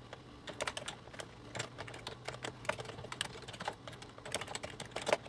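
Typing on a computer keyboard: irregular key clicks, several a second, over a faint low hum.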